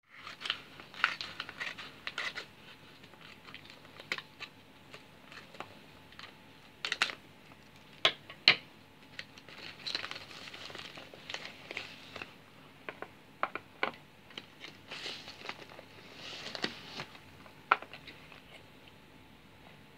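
Scissors snipping open a paper mailer envelope, then the envelope crinkling and rustling as it is handled and small black cardboard boxes are drawn out and set down on a wooden table. Sharp clicks and taps run throughout, loudest about 7 to 9 seconds in and again near the end.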